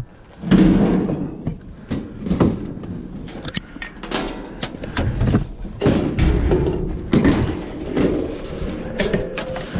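Irregular knocks, bangs and clatter of scrap being pulled and shifted around in a dumpster.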